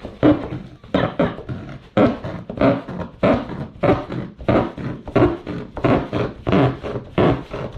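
Reciprocating saw (sawzall) cutting through a thick plastic tub, going in a steady rhythm of buzzing pulses about three every two seconds.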